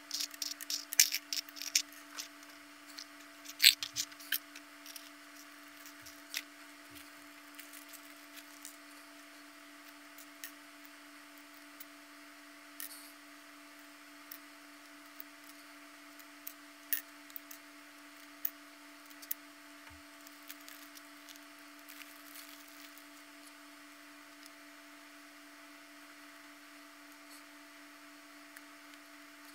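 Small puzzle-kit parts being handled and fitted together: sharp clicks and taps, many in the first few seconds and then only now and then. A faint steady hum runs underneath.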